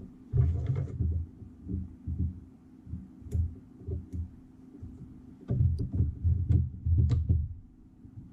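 Handling noise from a rotary fly tying vise being adjusted and locked on a desk: irregular dull knocks and thumps with a few sharp clicks, a cluster about half a second in and another run from about five and a half to seven seconds, over a steady low hum.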